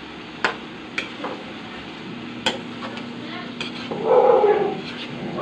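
Metal ladle stirring shrimp in butter sauce in a metal pan, with a few sharp clinks of the ladle against the pan over a steady simmer. About four seconds in, a dog starts yipping and barking.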